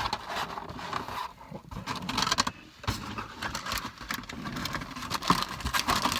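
Close handling noise: irregular rustling, scraping and clicking as things are picked up and moved, with one sharper click near the end.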